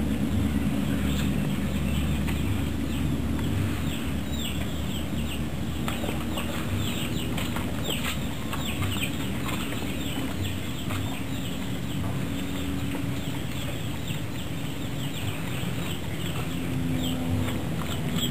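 Birds chirping busily: many short, high, falling chirps repeated quickly over a low rumble.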